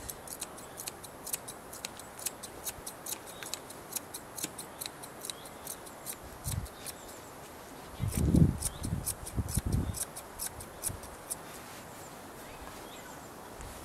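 Thinning scissors snipping through a Scottish terrier's coat: a quick, uneven run of crisp snips, several a second, that stops about three-quarters of the way through. A few low, dull bumps come in around the middle, the loudest about eight seconds in.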